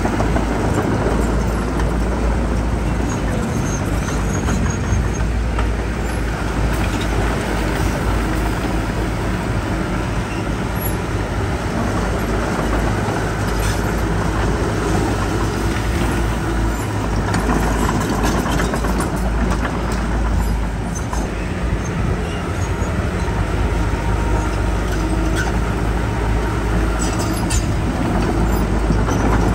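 Heavy diesel earthmoving machinery running steadily with a deep rumble, and occasional short metallic clanks and knocks.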